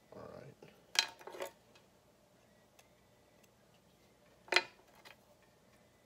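Sharp clicks of a disposable lighter being struck: two close together about a second in and one more near the end, after a brief rustle of hands on paracord at the start.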